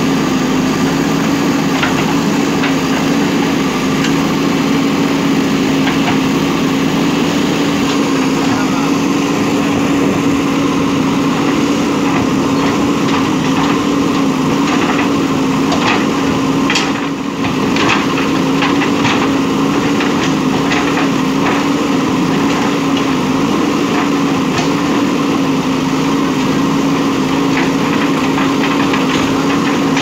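JCB 3DX backhoe loader's diesel engine running steadily while the backhoe digs soil. Scattered knocks and clicks from the bucket working earth and stones come mostly in the middle.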